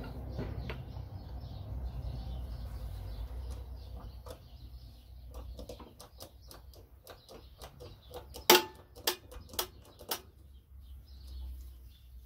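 Handling noise, then a run of sharp metallic clicks and clinks as a shop press is worked to push the rotor out of a Mercedes auxiliary heater pump with a brass drift. One loud ringing clink comes about eight and a half seconds in. Birds chirp faintly in the background.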